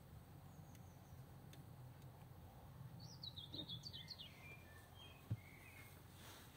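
Faint birdsong, a quick run of high chirps about three seconds in, over a low steady hum, with one short thump about five seconds in.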